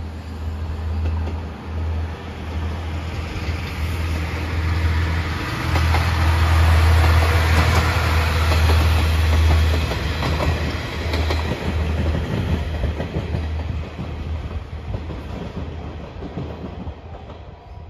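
Seto-Ohashi Anpanman Torokko diesel train passing: a low engine drone with wheels clattering over rail joints, building to its loudest about halfway through and fading near the end.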